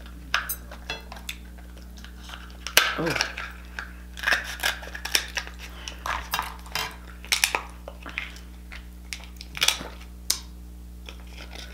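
Scissors snipping and cracking through king crab leg shell, an irregular run of sharp clicks and crunches, with the blades now and then knocking against a plate.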